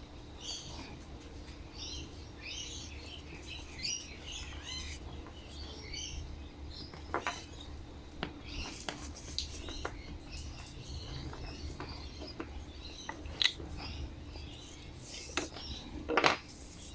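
Birds chirping in the background, with scattered light clicks and knocks from the mower's recoil starter parts being handled, and a louder clatter near the end.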